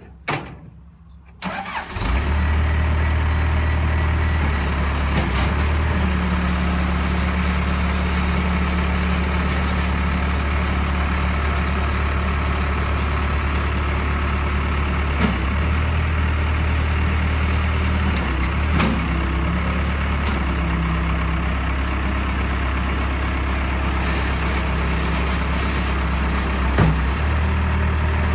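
Case 70XT skid steer's diesel engine starting after a brief crank and then running steadily at idle. A few short knocks and clicks sound over it.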